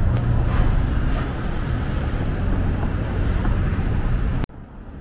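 Steady low rumble of vehicle traffic noise, cutting off abruptly about four and a half seconds in.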